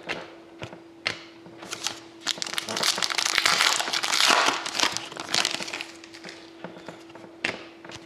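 A foil trading-card pack wrapper crinkling as it is torn open and crumpled, loudest from about two seconds in to about five and a half. A few sharp clicks of cards being handled come before and after.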